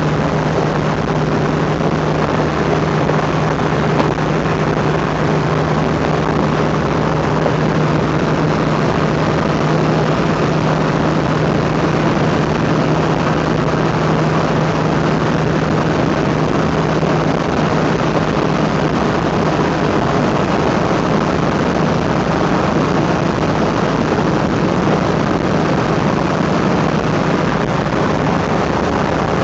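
Car engine running at a steady speed while driving, heard from inside the cabin along with tyre and road noise. Its low steady drone eases a little about seventeen seconds in.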